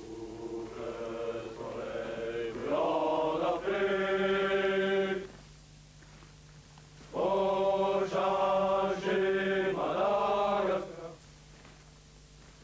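Legionnaires singing a marching song together, men's voices in unison. There are two long phrases with drawn-out held notes, separated by a pause of about two seconds.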